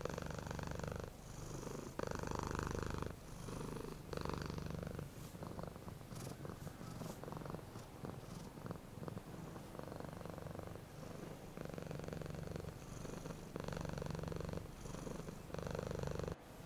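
Domestic cat purring steadily, the purr alternating in strength with each breath in and out, about once a second, with a brief break just before the end.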